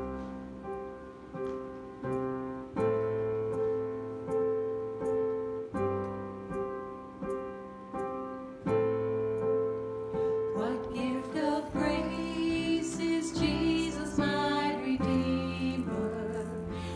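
Piano playing the introduction to a worship song, with chords struck in a regular rhythm; about eleven seconds in a singer comes in over the piano.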